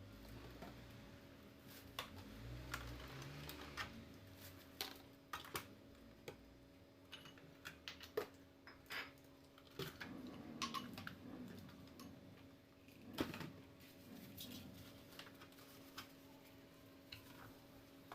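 Scattered light clicks and knocks of household items being handled and set down, over a faint steady hum.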